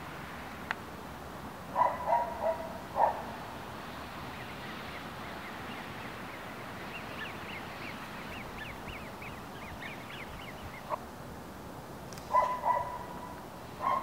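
Ducks quacking in two short bouts of several calls, about two seconds in and again near the end. In between, a small bird twitters faintly.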